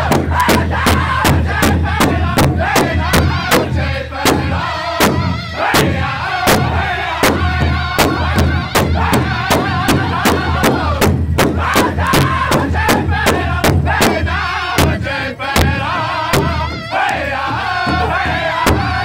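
Powwow drum group singing together over a large hide drum, all the drummers striking it in unison with a steady beat of about two strokes a second.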